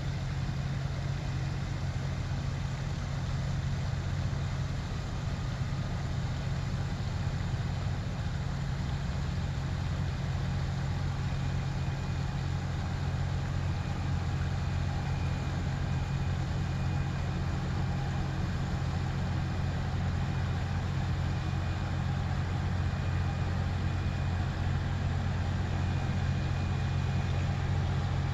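Steady low drone of a small cruise ship's engines carrying across calm water as the ship moves slowly past, growing slightly louder as it comes nearer.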